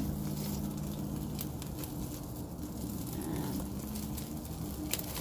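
Pork skewers sizzling over the flames of a gas grill, with scattered crackles and a sharper tick near the end, over a steady low rumble.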